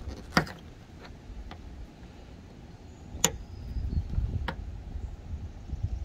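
3D-printed plastic cable clips snapping into a metal L-track rail: five sharp clicks, the loudest about half a second in and just after three seconds, over a low wind rumble on the microphone.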